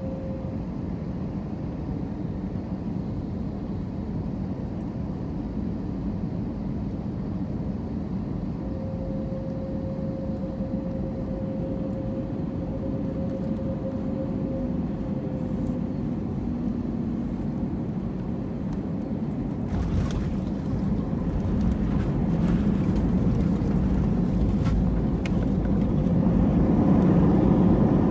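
Airbus A320neo cabin noise on final approach: a steady engine hum with a faint whine. About twenty seconds in, touchdown brings a sudden low rumble and rattling from the landing gear on the runway. The noise then builds steadily as the engines spool up for reverse thrust.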